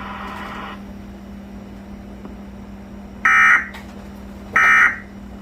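Two short, buzzy Emergency Alert System end-of-message data bursts (SAME digital code), about a second and a half apart, starting past the middle: the signal that the flash flood warning broadcast has ended. A low steady hum runs underneath.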